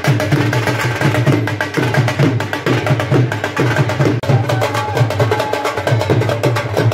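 Several dhol drums beaten together in a fast, steady rhythm: deep booms on the bass head over sharp stick strokes on the other.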